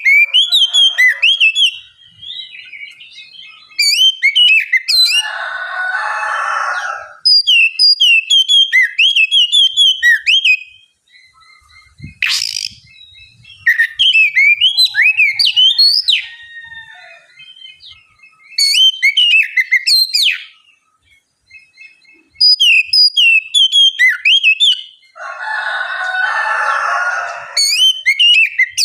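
Oriental magpie-robin (kacer) singing: bursts of clear, sliding whistled notes, each run lasting a few seconds, with short pauses between them. Twice the song breaks into a harsh rasping passage, about six seconds in and again near the end.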